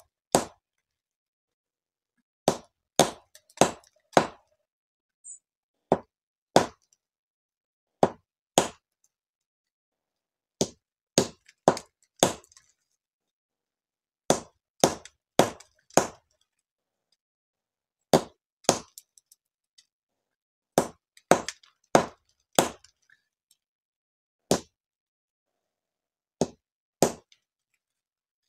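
Sharp knocks and cracks of hard Syrian juniper (andız) fruit stones being struck to crack them open, one blow after another with short pauses, often two or three in quick succession.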